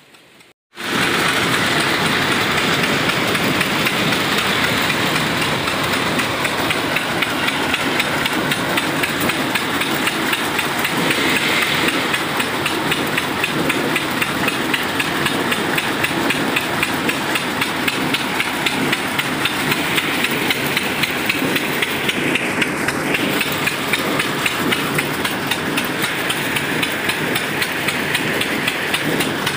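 Stationary engine running steadily, belt-driving a groundnut decorticator, with the dense rapid rattle of the machine shelling and sorting peanut pods. The sound comes in suddenly about a second in.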